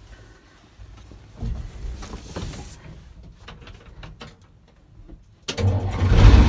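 Clunks and rattles, then about five and a half seconds in the Caterpillar diesel engine of a 1977 International Loadstar 1850 truck fires and runs loud and steady: its first start after sitting unrun for about a year.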